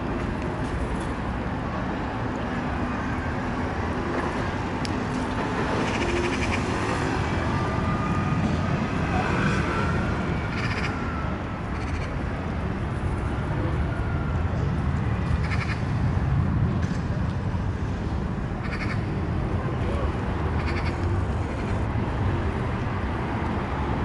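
Steady outdoor background rumble and hiss, with short soft clicks every second or two in the second half.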